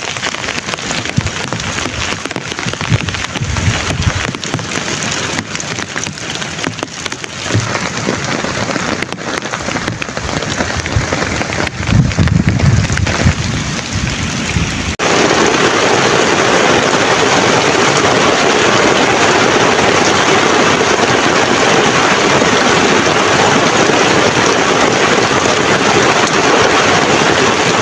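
Heavy rain falling, with scattered low thuds in the first half. About halfway through it changes abruptly to a louder, even downpour.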